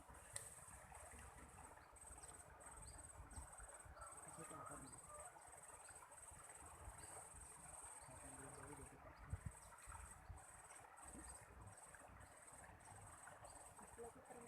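Faint, high-pitched insect trill, like a cricket's, broken by short pauses about twice a second, over a low background rumble. A couple of brief clicks come about nine seconds in.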